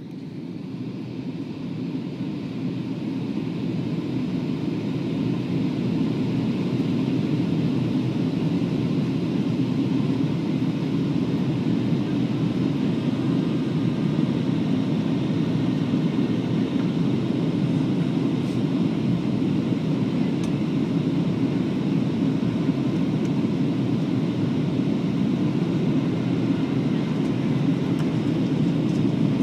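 Steady cabin noise of a Boeing 737-700 in flight on its approach: a low, even rush of airflow and CFM56 engine noise. It fades in over the first few seconds.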